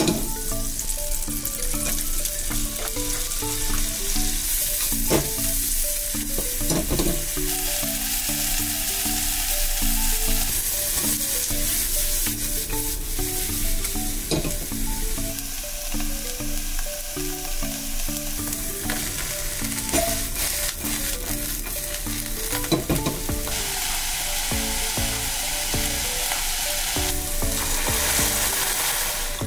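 Butter, sliced onion and shiitake and shimeji mushrooms sizzling as they are sautéed in a small saucepan, with a spatula stirring and now and then clicking against the pan.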